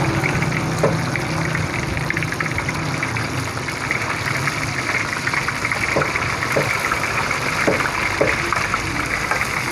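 Fish pieces deep-frying in hot oil in a large karahi, sizzling and crackling steadily, with a low steady hum underneath.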